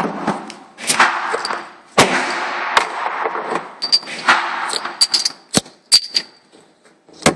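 Gunshots at a shooting range: about four loud reports roughly a second apart, each trailing off in an echo. Then come several short, sharp metallic clicks.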